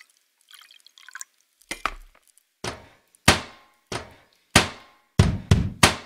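Water dripping and bubbling briefly, then deep drum hits as an intro music track begins, about two seconds in. The hits start spaced apart and come faster near the end.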